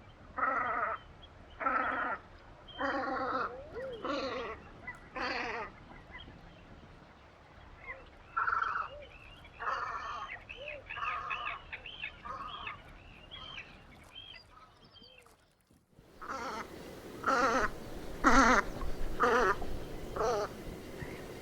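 Velvet scoters calling: a run of harsh, nasal, bleating calls about one a second, with thin arching whistles mixed in through the middle. After a break, another loud series of the harsh calls.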